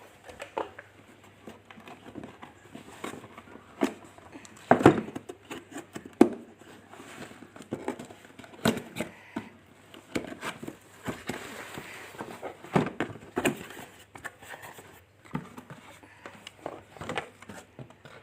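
Irregular clicks and knocks of plastic parts being handled and fitted together, with light rustling, on a cordless vacuum cleaner; the motor is not running.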